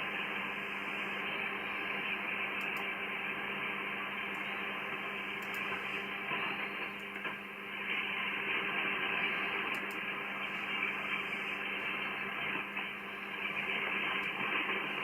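Amateur radio receiver audio from the 80 m band: steady hiss and static through a narrow voice-width filter, with a low steady tone and several faint steady tones beneath it and no voices.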